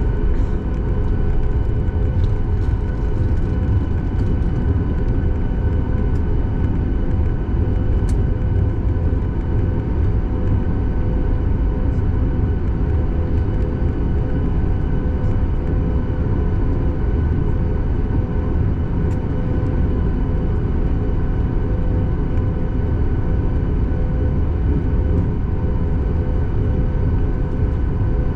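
Cabin noise of a Boeing 737 MAX 8 with its CFM LEAP-1B turbofans running steadily: a deep, unbroken rumble with a constant engine whine of several steady tones over it.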